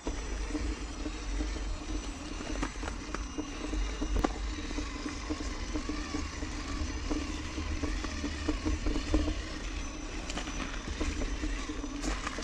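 Traxxas TRX-4 RC crawler driving and towing a trailer over wet gravel and slush, heard from a camera riding on the trailer: a steady running noise with scattered small clicks and crunches from the wheels on the ground, over a constant low rumble.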